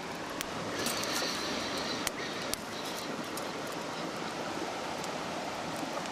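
Wood campfire burning with a steady hiss and scattered sharp, irregular pops and crackles.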